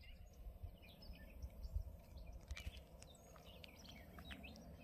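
Faint outdoor ambience of several birds chirping in short, quick notes, over a low rumble.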